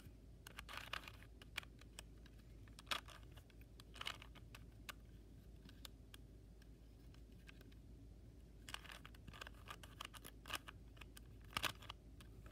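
Rubik's Cube being turned by hand: quick plastic clicks and clacks of its layers turning. A short flurry about half a second in, single turns around three, four and five seconds, then a longer run of rapid turns from about nine seconds to near the end.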